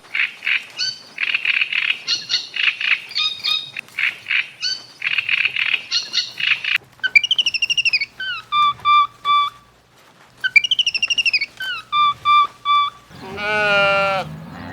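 Bird chirping in quick runs of short notes for several seconds, then two whistled calls, each falling and then holding a steady note. Near the end an animal bleats.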